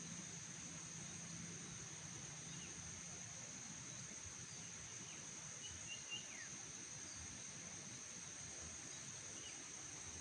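Insects droning steadily at a high pitch, with a few short bird chirps, the clearest about six seconds in.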